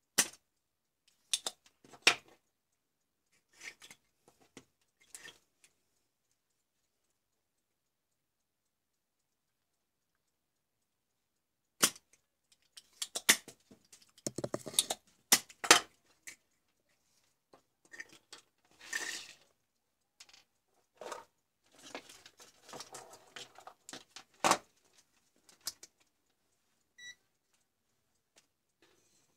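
Spring-loaded desoldering pump snapping as it fires on a solder joint, several sharp clicks. Tools then clatter and rattle on the workbench. A short electronic beep from a digital multimeter comes near the end.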